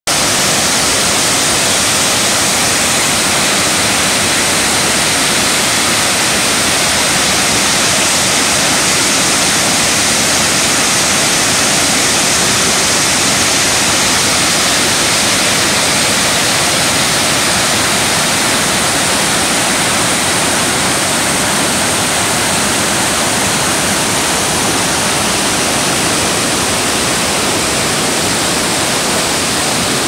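Waterfall pouring in a broad curtain over a low, straight crest onto rocks and churning through rapids below: a steady, loud rush of water.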